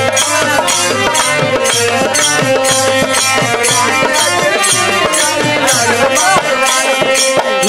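Instrumental break in a Bhojpuri devi geet: a held harmonium melody over dholak drum beats and an even jingle of small hand cymbals keeping a steady beat.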